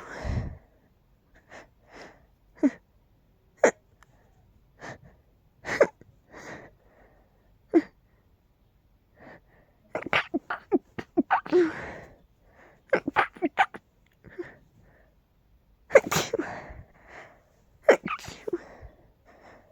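A person sneezing again and again, in a string of short, sharp bursts with quieter breaths between; the nose is tickly and stuffy from pollen.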